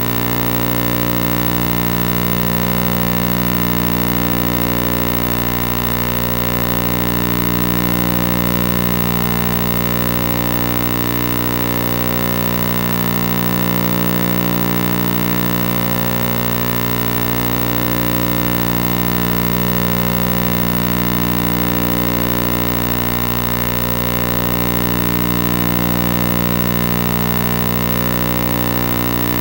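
A loud, steady electrical buzz with many evenly spaced overtones, swelling and fading slightly every five or six seconds.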